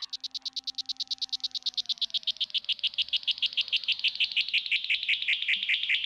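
A cicada singing: a rapid pulsing rattle of about ten pulses a second that slowly drops in pitch and grows louder.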